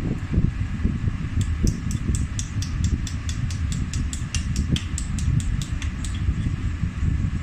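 Pliers working at the glued magnet of a 6-inch car speaker, giving a quick run of light clicks, about five a second, from about a second and a half in until near the end. Under it a steady low rumble runs throughout.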